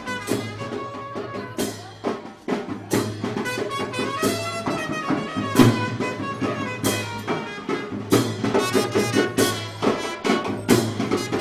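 Bangladeshi wedding brass band playing a tune, with drum and cymbal strikes under the brass melody.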